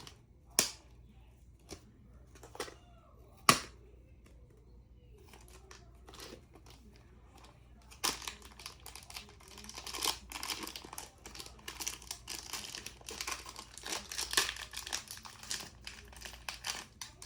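Plastic toy packaging being torn open and handled: a few sharp clicks in the first few seconds, then steady crinkling from about halfway through.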